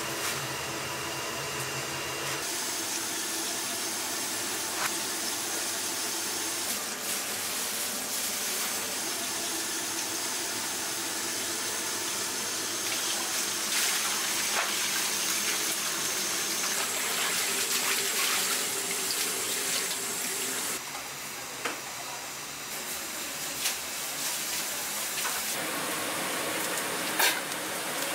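Kitchen water sounds: mostly a steady rush of running water from a hose into a steel basin of soybean sprouts being rinsed, with pots of boiling water briefly near the start and near the end. A few sharp clinks sound along the way.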